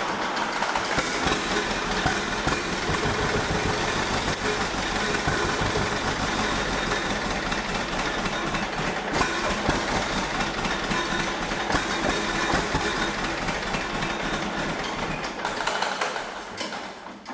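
John Deere B's two-cylinder engine running steadily, then fading away near the end.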